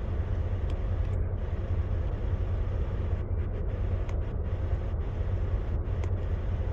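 Volvo VNL 760 semi truck's diesel engine idling steadily, a low even rumble heard from inside the cab.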